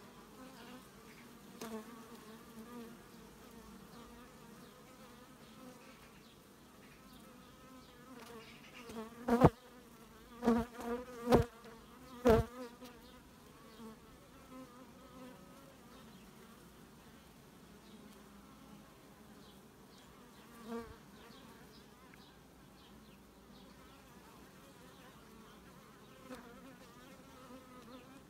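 Honey bees of an opened Carpathian bee colony buzzing, a steady hum. Around the middle comes a quick run of about five sharp knocks.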